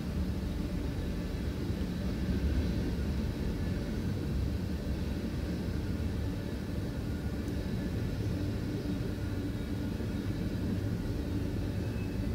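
Tank cars and boxcars of a CSX manifest freight train rolling past, their wheels on the rails making a steady low rumble.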